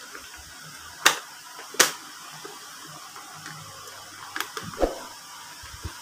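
Sharp clicks about one and two seconds in, then a few softer knocks near the middle, over a faint steady hiss.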